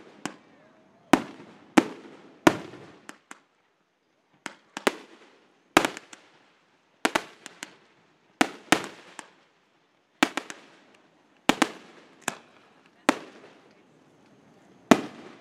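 Aerial firework shells bursting in a steady series of sharp bangs, each trailing off in an echoing tail, about one to two a second, with a short lull about three to four seconds in.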